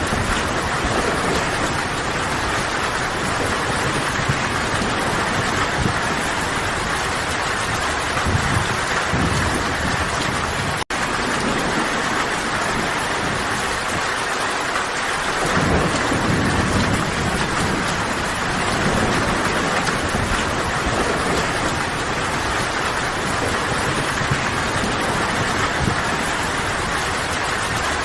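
Steady rain falling in a forest, a dense even hiss, with low rumbles swelling now and then underneath. The sound cuts out for an instant about eleven seconds in.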